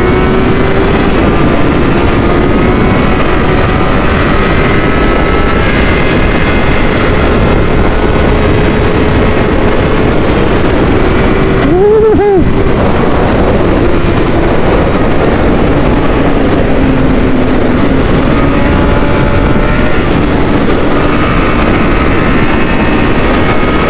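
Honda 600 cc inline-four motorcycle engine running at high, fairly steady revs under way, with heavy wind rush over it. About halfway through the revs drop and climb back sharply in a quick gear change.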